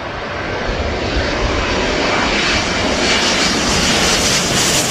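Twin-engine jet airliner passing low overhead on landing approach, gear down: a steady jet engine rush that grows louder as it comes over.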